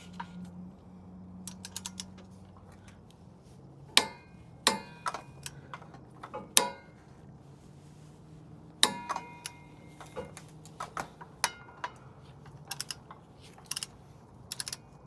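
Metal hand tools on a 24 mm nut: a ratchet clicking, with a few sharp metal clinks and knocks and quicker small ticks near the end. The nut is being backed off after a 134 ft-lb seating torque, ready to be re-torqued to 51 ft-lbs.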